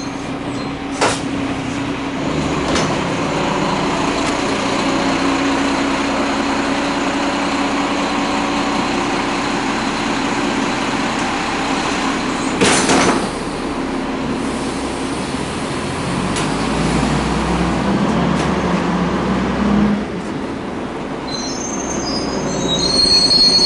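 Cabin sound of a 1992 Flxible Metro transit bus under way: its Cummins L10 inline-six diesel and Voith automatic transmission run steadily, with a short rush of noise about halfway through. High-pitched brake squeal comes in near the end as the bus slows.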